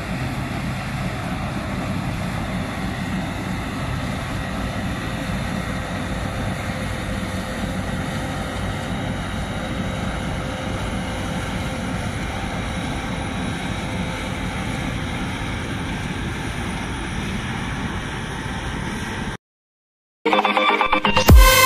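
Claas Lexion combine harvester running while harvesting soybeans: a steady machine drone with a few faint steady whining tones. It cuts off about nineteen seconds in, and after a second of silence loud electronic music starts.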